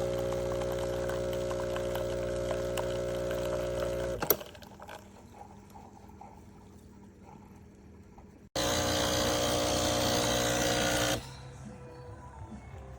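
Breville Barista Express espresso machine running with a steady, pitched mechanical hum that stops about four seconds in. More than halfway through it starts again suddenly, now with a strong hiss over the hum, and runs for under three seconds before stopping.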